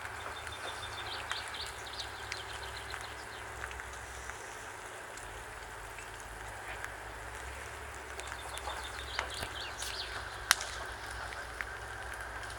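Campfire burning with a steady hiss and scattered crackles, and one sharp pop about ten and a half seconds in.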